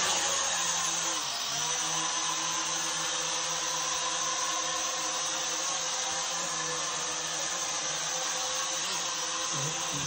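Small toy quadcopter drone's four motors and propellers whirring steadily as it lifts off and hovers, a high whine that shifts slightly in pitch about a second in.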